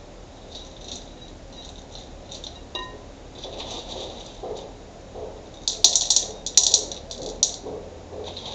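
Pebbles clinking against one another and the glass bowl as they are set by hand on the bottom of the pond. The clicks are scattered at first, then come as a run of louder clicks about six to seven and a half seconds in.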